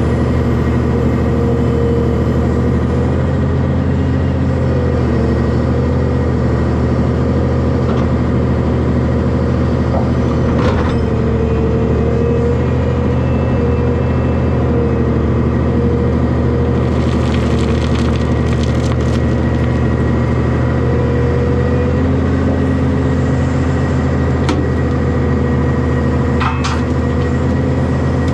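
Hyundai excavator's diesel engine running steadily under load, with a whine from the hydraulics that shifts in pitch as the machine works. Scraping, crunching and knocks of dirt and rock in the bucket and truck bed come now and then, most densely a little past the middle.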